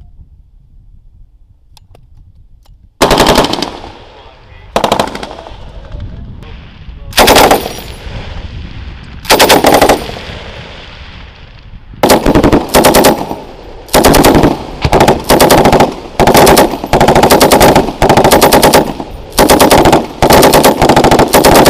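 M240 belt-fed machine gun firing short bursts, beginning about three seconds in. The first four bursts come about two seconds apart, each followed by a rolling echo. They then turn into a fast string of short bursts, roughly one a second.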